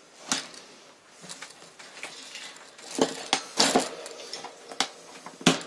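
Wire hamster-cage top being set onto the cage base and clipped into place: scattered metallic clinks and rattles, a cluster of them about three seconds in and a sharp knock near the end.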